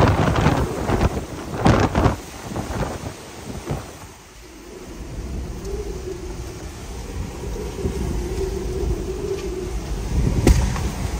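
Violent tornado winds and rain gusting hard over the microphone, loudest in the first two seconds. They then ease to a steadier rumble of wind and heavy rain with a faint hum, and there is one sharp knock near the end.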